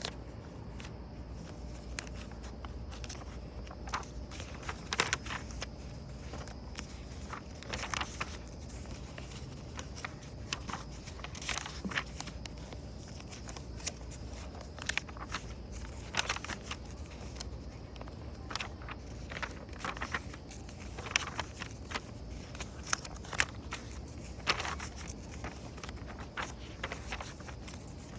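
Paper pages of a workbook being turned one after another: irregular rustles and soft flaps every second or so, over a low steady hum.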